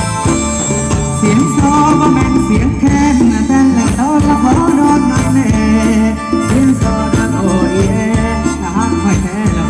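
Live Thai ramwong dance-band music with a steady beat and shaken percussion; a melody line that bends in pitch comes in about a second in.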